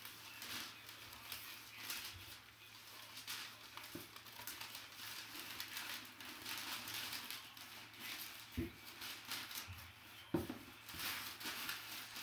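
Brown packing paper rustling and crinkling as hands dig through a cardboard box, with two dull thumps in the second half as items are moved.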